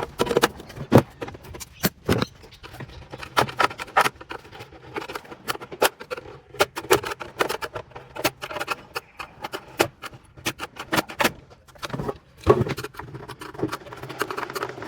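Irregular metal clanks, clicks and knocks of hand tools prying and knocking fittings off the copper heat exchanger of a Rheem continuous hot water heater during scrapping.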